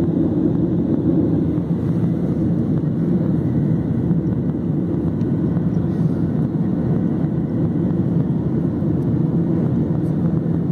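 Cabin noise of a jet airliner climbing after takeoff: its engines and the rushing air make a steady low drone, heard from a window seat inside the cabin.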